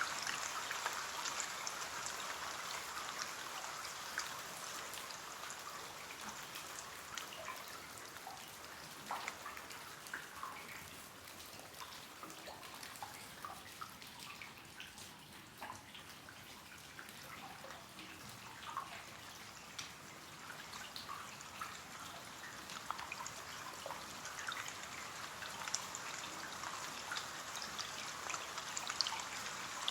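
Steady light rain with many separate drops tapping and pattering on a window pane, over a soft hiss of rainfall; a little softer in the middle.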